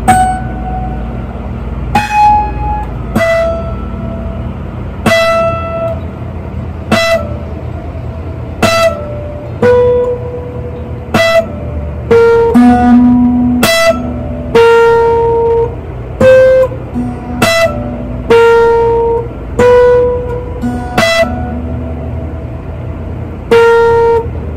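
Music: a slow melody of single plucked notes, roughly one every second, some held longer, over a steady low hum.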